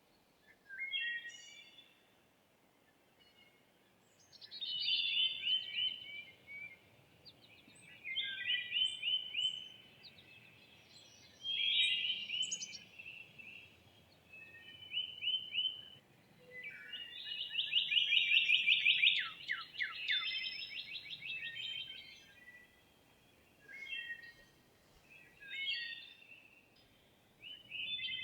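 Wild songbirds singing in a spring woodland: a series of song phrases of quick, high notes, each lasting a second or two and a few seconds apart. The longest and loudest phrase comes a little past the middle, over a faint steady background hiss.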